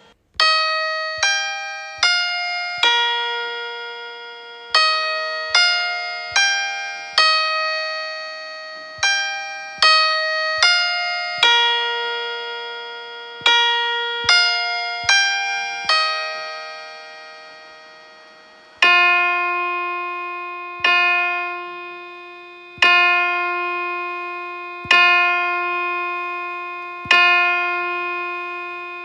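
Piano notes imitating church bells: a chiming tune of about twenty notes, then from about two-thirds of the way in a single lower note struck five times about two seconds apart, like a bell striking the hour.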